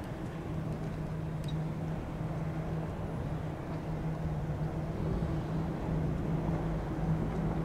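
Distant Airbus A330-300 jet engines on approach: a steady low drone with a hum, slowly growing louder.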